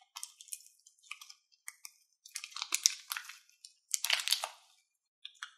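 Plastic piping bag full of slime crinkling and crackling as hands knead and squeeze it, in irregular crunchy bursts, loudest about two and a half and four seconds in.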